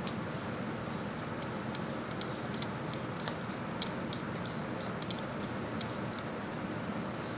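Light, irregular clicks and ticks of a long screwdriver turning the small screws that hold a motorcycle magneto stator plate, over a steady low hum.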